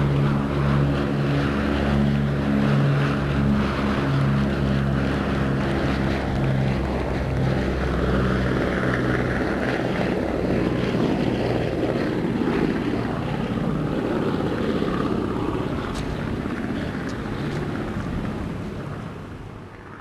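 Boeing B-17 Flying Fortress's four Wright R-1820 Cyclone radial engines droning steadily on a low pass. The drone turns rougher after about ten seconds as the bomber goes by, then fades away near the end.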